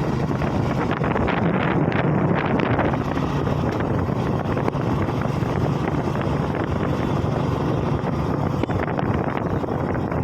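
Wind buffeting the microphone over the steady drone of a moving road vehicle's engine.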